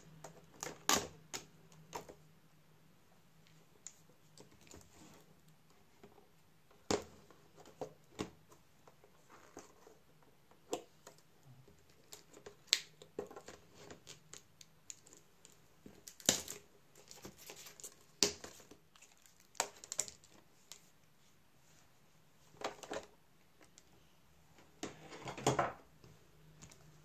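Irregular sharp clicks, taps and light knocks of hands handling a laptop LCD panel and its metal mounting frame, with a longer rustling cluster near the end as the panel is lifted out of the lid.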